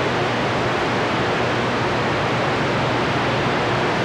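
CB radio receiving on channel 28 (27.285 MHz), its speaker giving a steady rush of static, with no voice on the channel.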